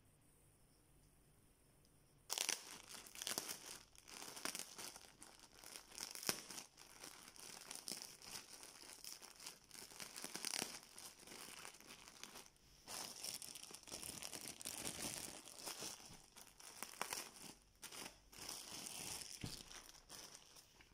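Plastic packaging crinkling as it is handled by hand, starting suddenly about two seconds in and going on in irregular rustles and crackles with brief pauses until near the end.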